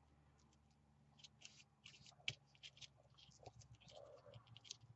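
Faint, scattered rustles and light ticks of paper cut-outs being handled and shifted on a tabletop, with one sharper tick a little after two seconds.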